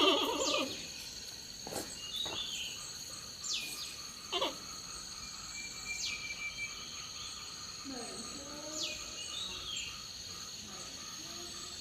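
Forest ambience: a steady high insect trill under short, descending bird chirps every second or two, with a few faint low gliding calls in the second half.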